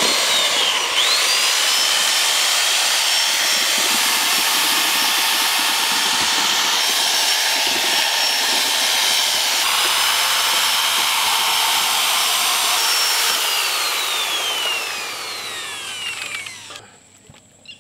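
Electric mixer grinder blending muskmelon, nuts and ice into juice. Its motor whine climbs as it spins up, runs steadily for about thirteen seconds, then winds down over the last few seconds and stops.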